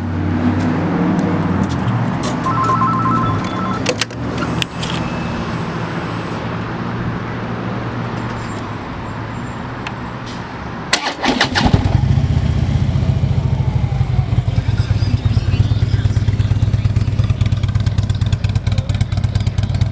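Starter cranks about eleven seconds in and the 2015 Harley-Davidson Road Glide's 103 cubic-inch Twin Cam V-twin catches and settles into a loud, rapidly pulsing idle through Rinehart exhaust pipes. A brief electronic beep sounds a few seconds before the start.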